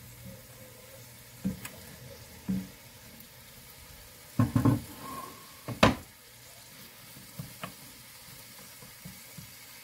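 Diced onions and ground beef sizzling in butter in a cast iron skillet, with a few knocks as a wooden cutting board and a wooden spoon strike the pan, the loudest about six seconds in.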